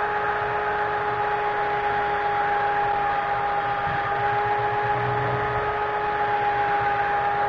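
Small benchtop belt sander running with a steady whine as a wooden workpiece is held against the moving belt and sanded.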